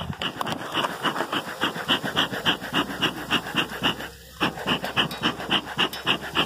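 Rapid rhythmic panting, about five breaths a second, with a short pause about four seconds in.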